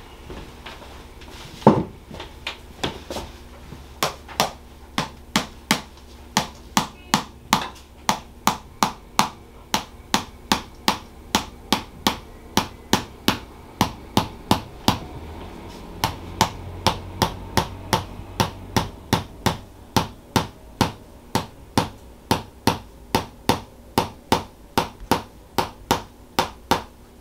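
Tok Sen massage hammer tapping a wedge held against a person's upper back, in an even rhythm of about two sharp taps a second. The first few seconds hold a few scattered taps, the loudest near two seconds in.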